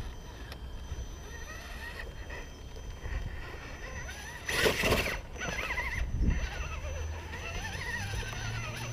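Electric RC rock crawler's brushless motor and drivetrain whining in wavering, rising and falling pitches as it creeps up a wooden ramp, with a brief loud rush of noise about halfway through.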